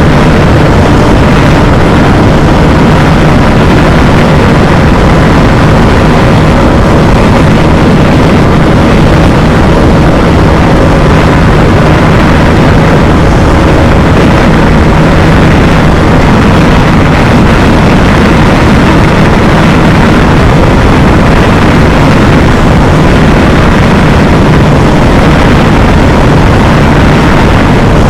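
Bajaj Dominar 250's single-cylinder engine held at steady high revs in fifth gear at full throttle, under a loud, steady rush of wind and road noise.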